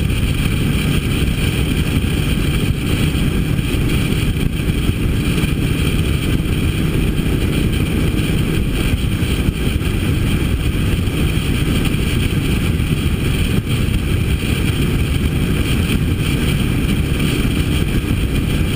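Harley-Davidson V-twin motorcycle engine running steadily at cruising speed, heard from on the moving bike together with wind rush, with no change in throttle.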